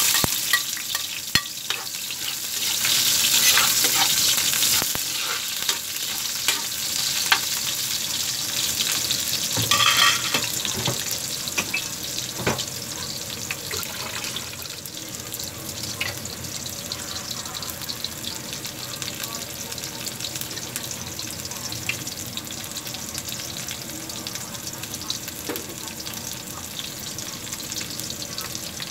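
Sliced onions and garlic sizzling in hot cooking oil in an aluminium wok, loudest for a few seconds just after the onions go in, then settling into a steady, quieter frying hiss with a few small clicks and pops.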